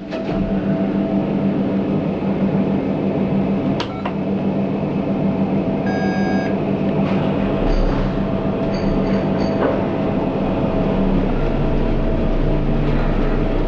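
ThyssenKrupp lift car humming steadily, with a sharp click near the start and another about four seconds in. A few short electronic beeps come from the keypad panel around the middle.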